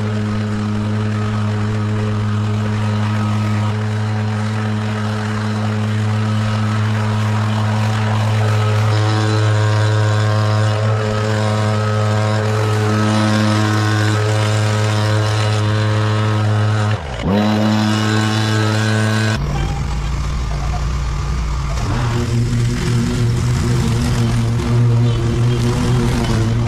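Small petrol engine of lawn-care equipment running steadily at high speed. About 17 seconds in it dips sharply and recovers, and a couple of seconds later the sound shifts to a heavier, more uneven low rumble.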